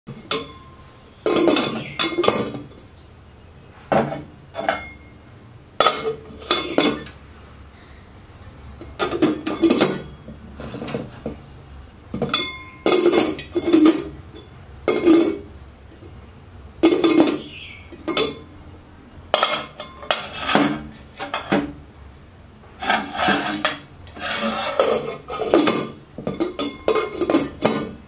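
Stainless steel lid put down onto a cooking pot again and again, each time a metallic clank with a short ring, some with a brief rattle as the lid settles on the rim. The clanks come every second or two, sometimes two or three close together.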